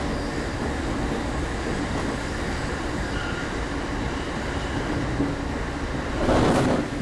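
Joban Line 15-car commuter train running, heard inside a passenger car as a steady rumble and rush of wheels and track. About six seconds in there is a brief louder rush.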